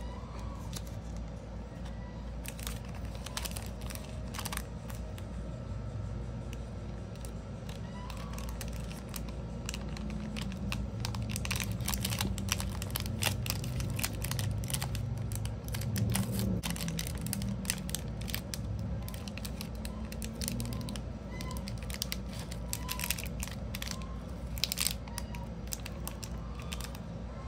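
Clear plastic cellophane bag crinkling and crackling as a round bar of soap is slid into it and the bag's flap is folded shut, with clusters of small crackles.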